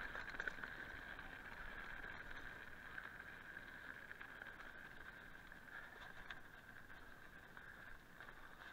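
Mountain bike rolling fast down a dirt singletrack: a steady high buzz of tyres and bike over the ground, with small rattles and knocks as it crosses rough spots.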